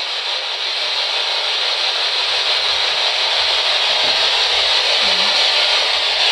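Ghost-hunting spirit box sweeping through radio static: a loud, steady hiss, with a couple of faint brief fragments about four and five seconds in, as the device is listened to for an answer to a question.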